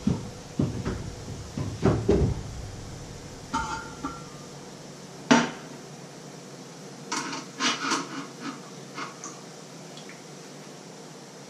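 Pots, pans and metal lids knocking and clattering on a stovetop as cookware is moved about: a run of separate knocks, with one brief metallic ring about three and a half seconds in and a sharp clack a little after five seconds.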